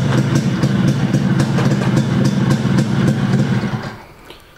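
Yamaha RX100's single-cylinder two-stroke engine running at idle through a six-hole silencer, then dying away and stopping about four seconds in.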